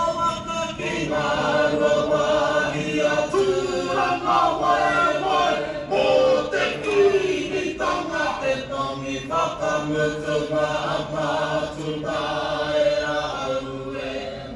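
A group of voices singing a Māori waiata in te reo Māori, with long held notes, heard through a hall's speakers. It fades near the end.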